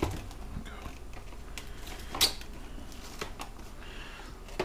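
Light kitchen handling noises: a few scattered small clicks and taps, with one sharper knock about two seconds in.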